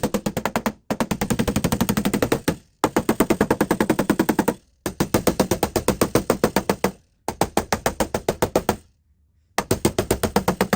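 Rapid tapping on a truck's sheet-metal panel, about a dozen strikes a second in runs of one and a half to two seconds with short pauses between. This is paintless dent repair tap-down work, knocking down the metal around a dent to relieve pressure while a Keco arm pulls on a glued crease tab.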